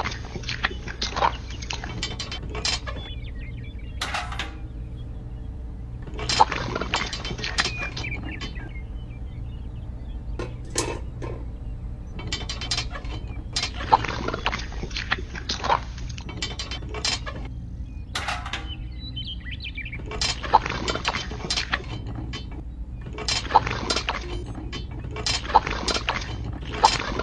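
Small hard parts clinking and clattering in bursts of sharp clicks, each burst a second or two long with short pauses between, over a steady low hum.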